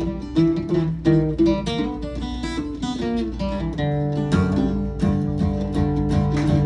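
Steel-string acoustic guitar playing an instrumental country-boogie passage: quick picked notes, then longer-ringing notes and chords from about four seconds in.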